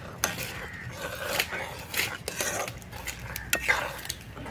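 Metal spatula clinking and scraping against a metal cooking pot while stirring thick gram-flour gravy (pithla), with several sharp clinks spread through.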